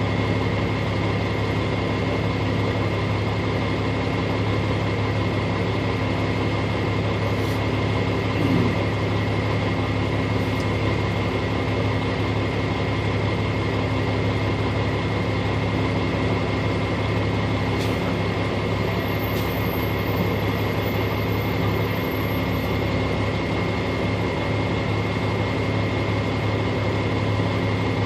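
A vehicle's engine running steadily with a constant low drone, heard from inside the cab.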